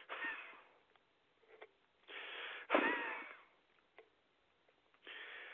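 A man breathing hard and raggedly: two heavy breaths, each a noisy in-breath followed by a wheezy out-breath with a faint whistling note, then a third in-breath near the end. He is out of breath and worked up, complaining of chest pain and sweating.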